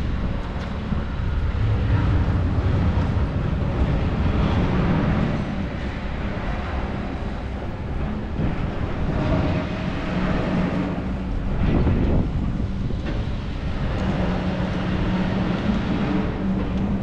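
A tram running along the street, a steady low hum over a wash of rail and street noise that holds through the whole stretch.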